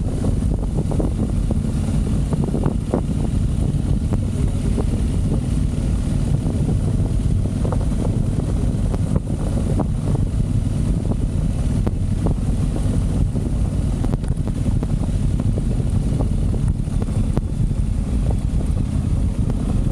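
Motorcycle riding along with its engine running steadily under heavy wind noise on the microphone, with a few faint knocks now and then.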